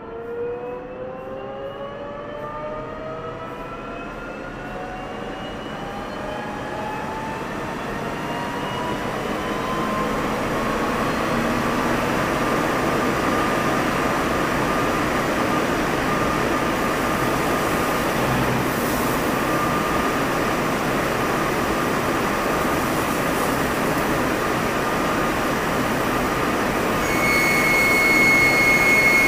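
CNC lathe spindle spinning up a large round bar: a whine that rises in pitch over the first ten seconds or so, then runs steadily with machine noise. Near the end, high-pressure through-tool coolant comes on at the indexable drill, adding a high steady tone, hiss and spray, and the sound gets louder.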